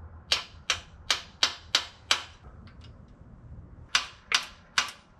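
Ratchet wrench clicking in two runs of sharp metallic clicks, about three a second, six then three more after a pause, as it works a pulley puller on the crankshaft timing gear.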